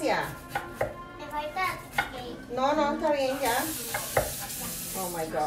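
Kitchen knife chopping an onion on a wooden cutting board: a handful of sharp, irregular knocks, with a voice sounding in between.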